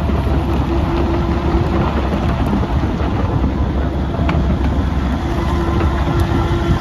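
Volvo ECR88D compact excavator's diesel engine running steadily, a deep rumble with a thin steady tone that comes and goes.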